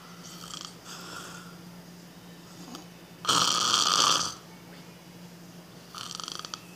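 Snoring: one loud, rasping snore lasting about a second, a little over three seconds in, with softer fluttering snores at the start and near the end.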